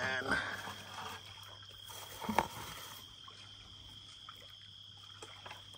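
Water trickling and sloshing in a plastic gold pan as gold concentrate is worked in it, with a sharp knock about two seconds in.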